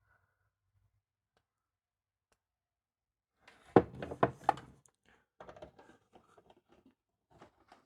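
A quick run of clicks and knocks from handling a small LiPo battery and its charger leads, hooking the battery up to charge; the loudest knocks come about four seconds in, with lighter clicks after.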